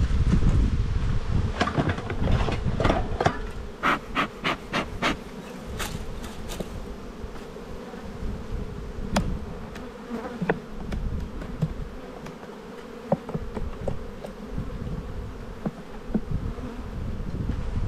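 Honeybees buzzing over an open hive box, a steady hum. A quick run of sharp clicks and knocks about two to five seconds in and a few more later, from work at the wooden frames with a metal hive tool; wind rumbles on the microphone at the start.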